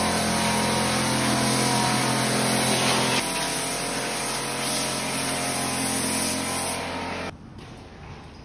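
A machine's motor running steadily with a loud hum and hiss, which changes slightly about three seconds in and cuts off sharply about seven seconds in.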